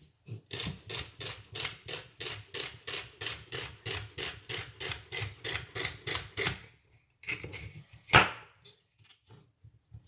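Knife chopping celery on a chopping board in quick, even strokes, about five a second. The chopping stops about seven seconds in, and a single louder knock follows about a second later.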